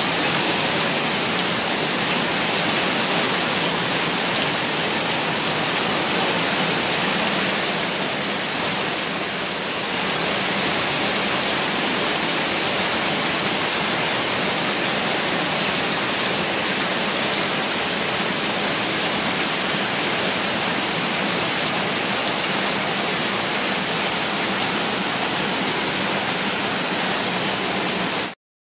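Heavy rain and floodwater rushing over concrete: a steady, even rush of water that cuts off suddenly near the end.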